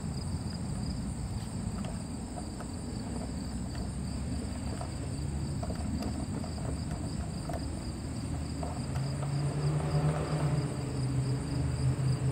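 Steady outdoor insect chorus, high and continuous, over a low rumble, with a few faint ticks. From about nine seconds in, a low steady hum grows louder and becomes the loudest sound.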